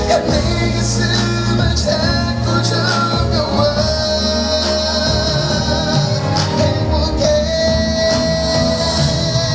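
Live pop music from a stage performance: a band playing a steady beat with singing and long held notes.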